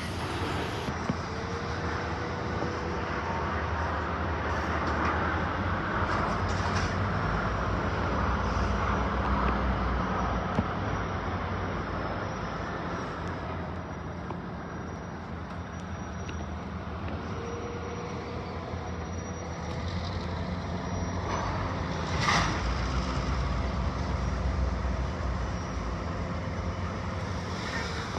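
Steady low rumble and hum of a freight train standing with its diesel locomotives idling. A faint steady whine comes in twice for a few seconds, and a single sharp bang sounds about three-quarters of the way through.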